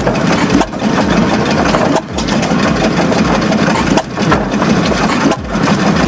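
Engine running steadily and loudly, with a few brief dips in level.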